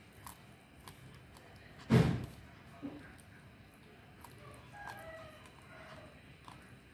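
A single heavy thump about two seconds in, followed by a lighter knock, over faint scattered clicks.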